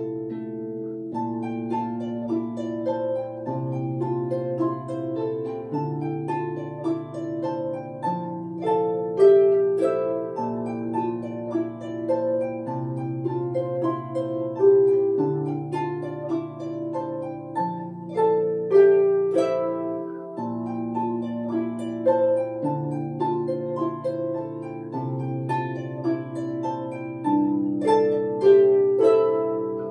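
Solo harp played by hand: low bass notes, changing about every two seconds, ring under a plucked melody in the middle register, with the notes left to sound on.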